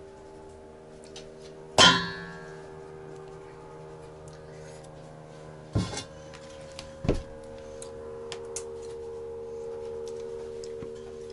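A ladle knocks against a large basin with a sharp clang about two seconds in, and the basin rings on until a lighter knock about six seconds in stops it. A third knock comes a second later, over a steady hum.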